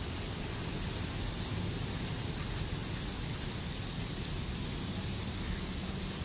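Small fountain jets splashing steadily back into a shallow stone-lined pool.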